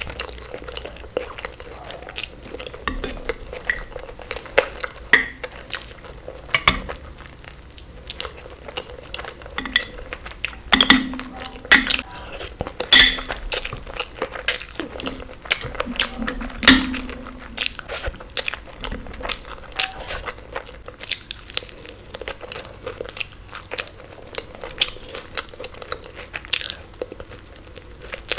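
Close-miked eating for ASMR: a steady run of crunchy bites and chewing, with irregular sharp clicks, busiest about halfway through.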